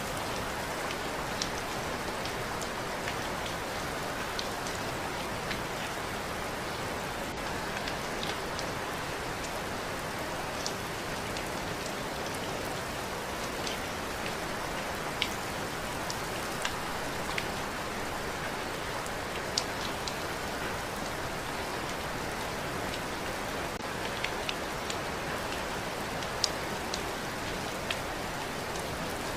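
Steady rain falling, an even hiss with scattered sharper drops striking a surface close by.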